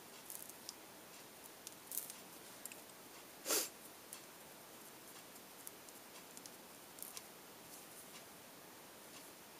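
Prismacolor colored pencil stroking on paper, faint and scratchy, in short scattered bursts. About three and a half seconds in there is one short, louder hiss.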